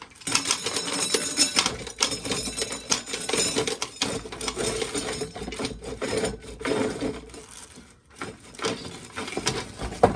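Hand-cranked corn sheller running, with ears being fed through and kernels rattling and clicking off the cob into a pail. The clatter drops out briefly about eight seconds in, then resumes.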